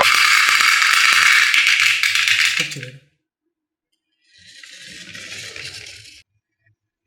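Marbles rolling and clattering down a HABA wooden marble-run track: a loud, dense rattle of many small clicks that stops abruptly about three seconds in. After a short silence, a quieter stretch of rolling rattle starts and cuts off suddenly.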